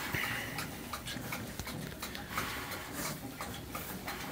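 Two young piglets rooting in straw bedding and dirt: soft grunts amid irregular rustling and crackling of straw.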